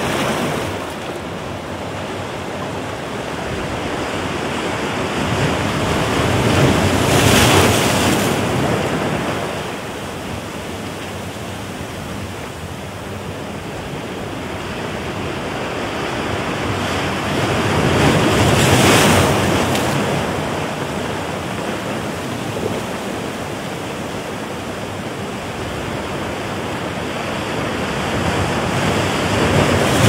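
Ocean surf washing over a rocky shore, recorded in stereo through a blimp-shielded microphone. It is a steady rush that rises and falls as waves break about every twelve seconds.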